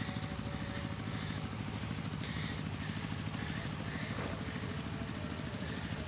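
Small motorcycle engine running steadily with a rapid, even pulse.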